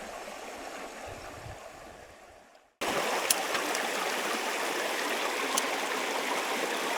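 Shallow creek water running over stones. It fades away about two and a half seconds in, then cuts back in louder and steady.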